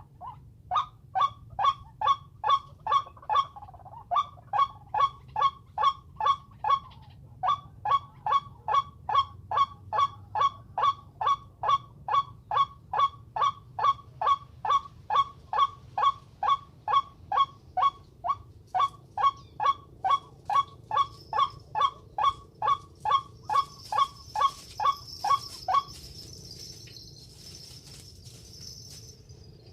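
White-breasted waterhen calling: a long, even run of short honking notes, about three a second, with two brief breaks, stopping about 26 seconds in. A faint high buzz, like insects, comes in near the end.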